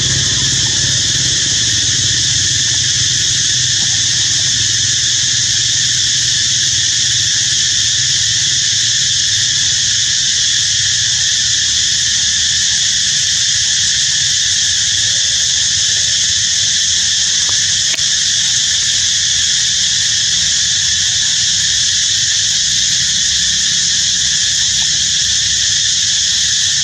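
Steady, loud, high-pitched insect chorus that drones on unchanging, with a low rumble beneath it.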